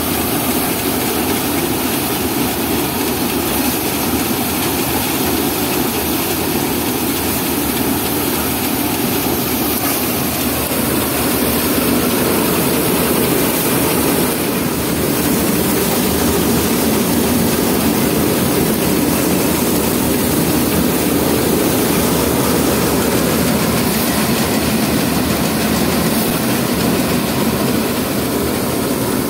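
Tractor-driven paddy thresher running under load as sheaves are fed into its drum, together with the Sonalika DI 745 tractor engine driving it: a steady, dense mechanical din.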